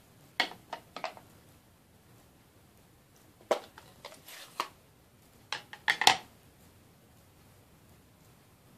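Hard plastic stamping supplies, clear acrylic stamp blocks and an ink pad case, being handled and set down on a glass desktop. They give a scatter of short sharp clacks: a few near the start, more around three and a half seconds in, and a loud cluster around six seconds in.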